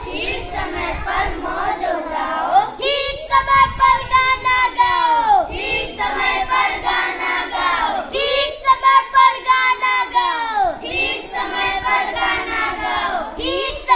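A group of children singing a Hindi nursery rhyme together in phrases of a few seconds each.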